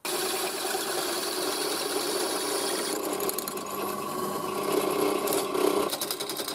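Pillar drill driving a bi-metal hole saw through the sheet-steel wall of an old propane bottle, a steady cutting whine and grind as the saw chews into the metal. A higher steady tone joins about three seconds in and drops away about three seconds later.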